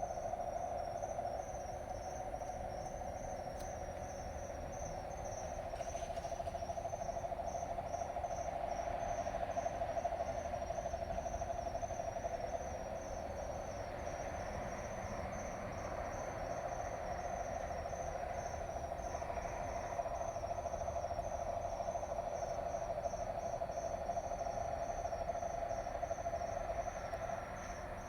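A constant low-pitched drone or trill that holds one pitch without a break and cuts off near the end, over fast, evenly pulsing cricket chirping.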